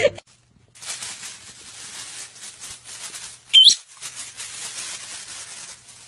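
A parrot's single short, loud, rising whistle-like call about three and a half seconds in, over a continuous rustling, crackling noise.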